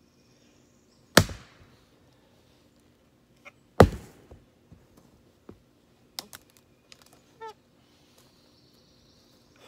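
Axe chopping into a log on a stump chopping block: two sharp, heavy strikes about two and a half seconds apart, then several lighter knocks.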